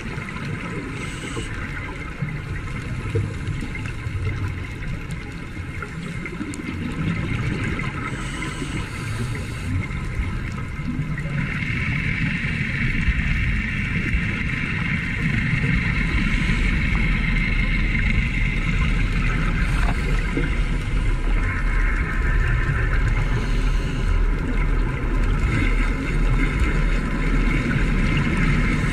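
Underwater ambience picked up by a dive camera: a steady low rumble and hiss. A higher steady drone comes in about eleven seconds in, and the whole gets a little louder after that.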